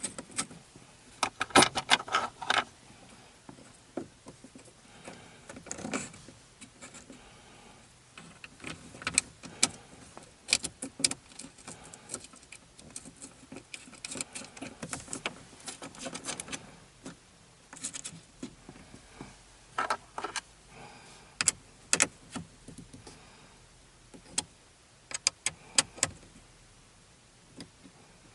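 Irregular metallic clicks and clinks of small bolts and a hand tool as a RAM mount ball is bolted onto a dash vent mount, in scattered clusters with quiet gaps between.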